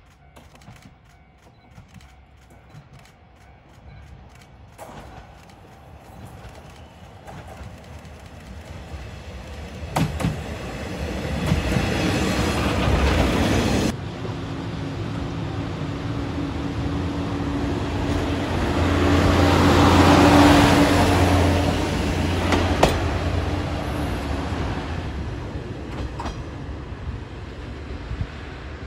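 Single-car diesel railcar on a rural line. First its running rumble grows louder as it approaches, with a few sharp clicks from the rails. Then, after an abrupt change, its diesel engine drones steadily under power, swelling to a peak and fading as the car moves away.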